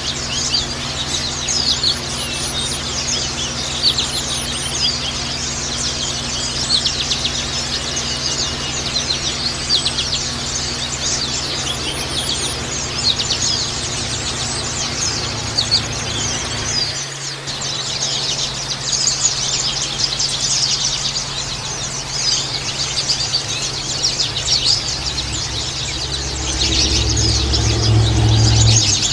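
Oriental white-eyes (pleci, Zosterops) chirping and twittering, many short high calls overlapping without pause. A steady low hum runs beneath, and a louder low rumble comes in near the end.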